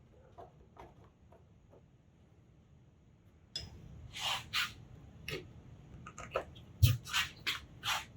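Wood-carving chisel cutting into a block of wood: faint clicks, then from about halfway in a run of short, sharp scraping strokes, roughly two a second.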